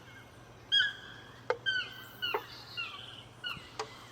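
Birds calling: short clear notes that hook downward at the end, repeated several times, with a few sharp, quickly falling chips.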